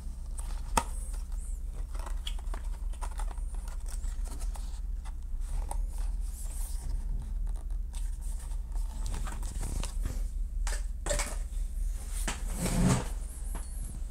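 Packaging being handled on a tabletop: scattered rustles, crinkles and light clicks, with a sharp click about a second in and a louder handling noise near the end, over a steady low hum.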